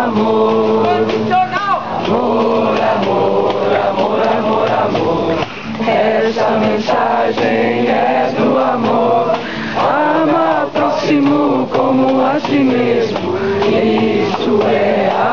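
A group of men and women chanting together in unison, a loud, steady communal ceremonial chant.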